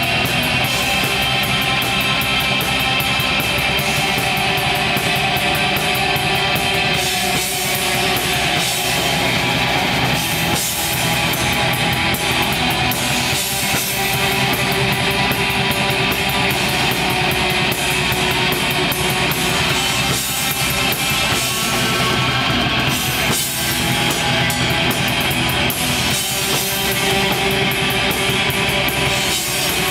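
A black metal band playing live: a loud, continuous wall of distorted electric guitars over fast drumming with rapid cymbal strokes.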